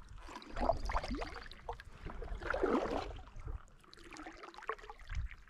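Canoe paddle strokes in calm river water, with two louder strokes about two seconds apart and softer water movement between them.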